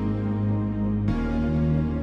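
Background music: soft, ambient-style backing track with sustained chords that change about a second in.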